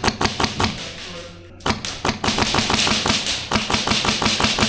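Airsoft gunfire: a quick string of sharp shots, then denser, near-continuous rapid fire starting about a second and a half in.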